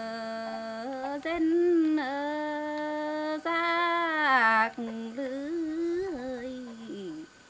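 A woman singing lượn cọi, a Tày folk song, unaccompanied: long held notes joined by wavering ornaments. The phrase falls and ends shortly before the end.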